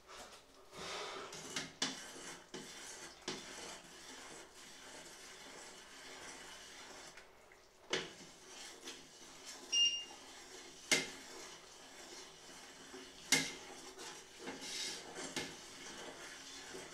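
A spoon stirring and scraping inside a large stainless-steel pot, knocking against its sides again and again. A brief electronic beep sounds about halfway through.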